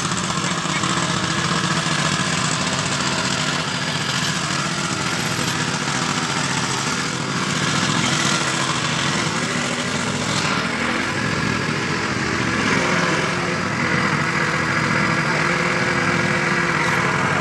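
Small four-stroke petrol water pump running steadily at a constant speed. It is pushing water down the drill pipe of a wash-bored water well.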